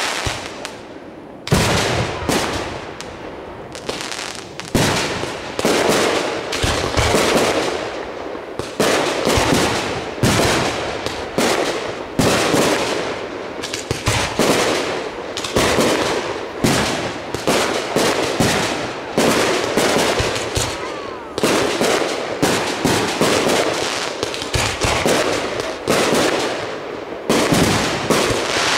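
Aerial fireworks display: a rapid, near-continuous run of shell bursts and sharp reports, several a second, with a brief lull about a second in.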